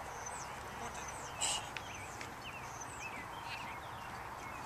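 Songbirds chirping, with repeated short falling whistles, over steady outdoor background noise. There is one brief soft rustle or knock about one and a half seconds in.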